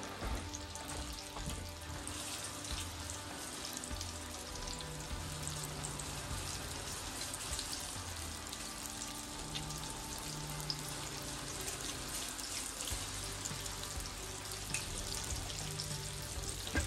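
Battered steak strips shallow-frying in hot oil in a cast-iron skillet: a steady sizzle dotted with small pops. Background music with low, steady notes plays underneath.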